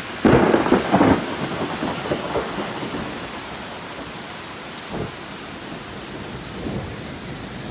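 A thunderclap breaks about a quarter second in, cracking twice and rumbling away over a couple of seconds. A short rumble follows near five seconds and another near the end, all over the steady hiss of heavy rain.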